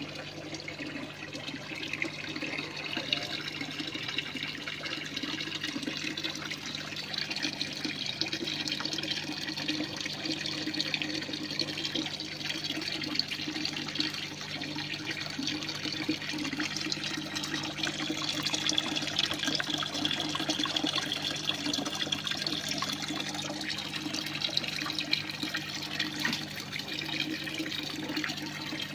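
Water running and trickling steadily, as in a recirculating PVC hydroponic tower, with a steady low hum underneath.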